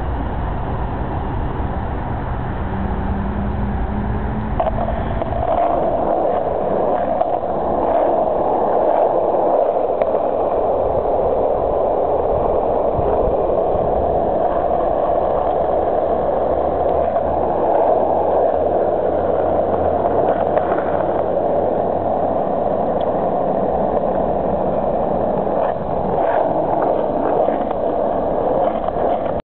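Skateboard wheels rolling over asphalt, a steady rumbling rush. It starts lower and rougher, and settles into an even, higher rush about five seconds in.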